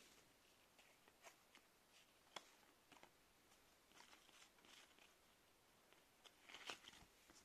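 Faint clicks and rustles of Pokémon trading cards being handled and slid apart into a fan, in scattered short ticks with small flurries past the middle and near the end.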